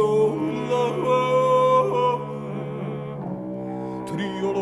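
Alphorns playing: a steady low note is held while a higher line above it holds notes and slides between them.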